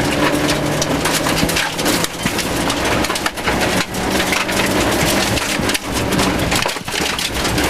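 Inside a Rover 214 rally car at speed on gravel: its 1.4-litre four-cylinder engine runs at a steady pull while gravel crackles and pelts constantly against the underside and wheel arches, with tyre noise on the loose surface. The engine note fades briefly near the end.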